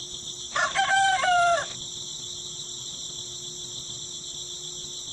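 A rooster crows once, about a second long, near the start, over a steady high-pitched chorus of insects.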